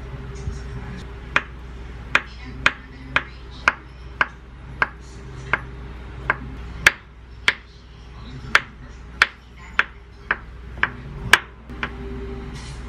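Kitchen knife slicing peeled avocado halves on a wooden cutting board, with a sharp tap each time the blade meets the board. The taps come about two a second, some eighteen in all, starting a little over a second in and stopping shortly before the end.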